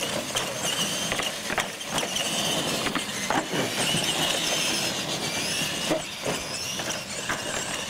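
Radio-controlled monster trucks racing on concrete, their motors and gears whining up and down in pitch, with several sharp knocks as the trucks hit and drop off the ramps.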